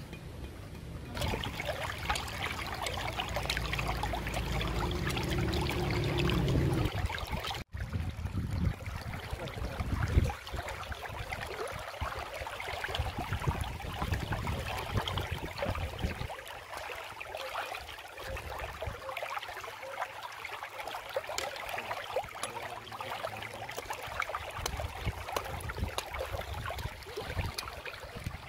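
Shallow stream running over a stony bed: a steady trickling, splashing water sound.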